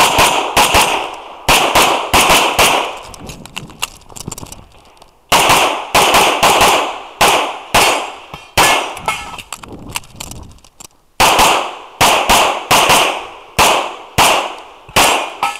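Semi-automatic pistol fired in rapid strings of shots, two to several in quick succession. There is a longer pause of about two and a half seconds early on and a shorter one about two-thirds through, then a final fast run of shots.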